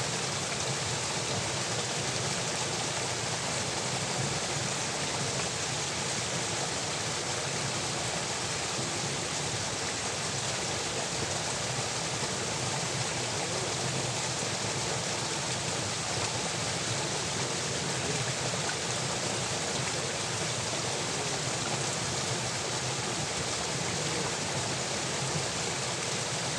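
Steady rush of water in an irrigation channel, spilling out of a culvert under a small stone bridge.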